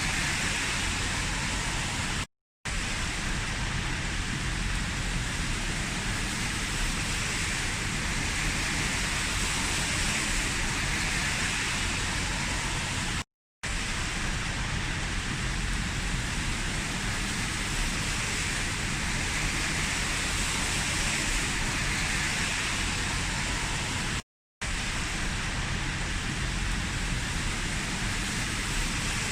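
Heavy rain falling as a steady, dense hiss, cut by three brief dropouts to dead silence about every eleven seconds.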